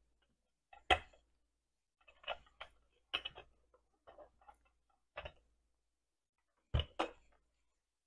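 Wooden rolling pin knocking and tapping on a granite countertop while bread dough is rolled out: irregular light knocks, the loudest about a second in and a pair near the end.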